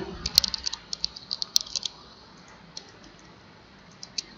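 Computer keyboard and mouse clicking: a quick run of about a dozen clicks in the first two seconds, then a few scattered single clicks.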